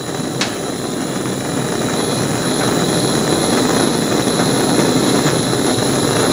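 Handheld propane torch burning steadily, its flame playing on a small steel disc: a continuous rushing hiss that grows a little louder over the first couple of seconds. One faint click about half a second in.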